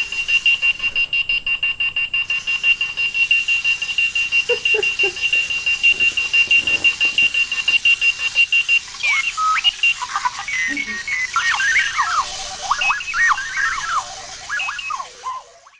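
Clocky runaway alarm clock going off. A high, rapidly pulsing beep holds one pitch for about nine seconds, then gives way to a jumble of warbling, sliding electronic chirps that cut off just before the end.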